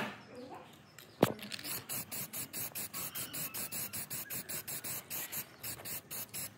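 A single sharp click, then a steady run of short, even scraping strokes, about four a second, as of a part being worked by hand.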